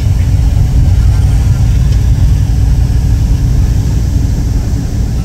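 Steady low rumble of a moving vehicle heard from inside its cabin, running evenly without change.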